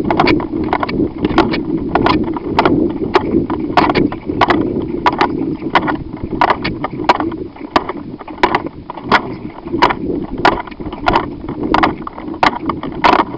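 Footsteps at a brisk walk, about two a second, with a steady rumble of gear and clothing rubbing against the microphone.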